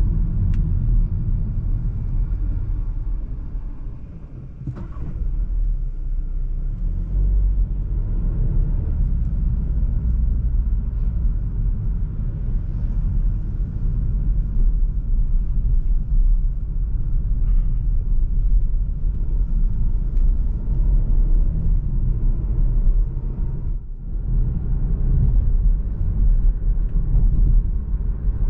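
A Seat Arona driving, its 1.5 TSI turbocharged four-cylinder petrol engine running under the steady low rumble of road and tyre noise. The level dips briefly twice.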